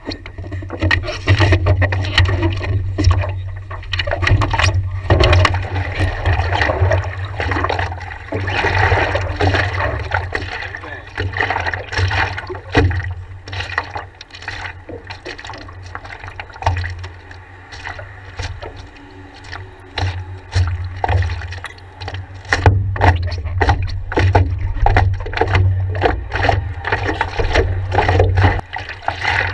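Water splashing and slapping against the nose of a stand-up paddleboard as it is paddled, heard close up with a heavy low rumble and many sharp splashes and knocks. It eases off for several seconds in the middle, then picks up again.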